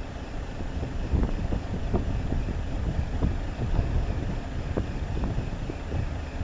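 Wind buffeting the microphone: an uneven low rumble with irregular gusty thumps.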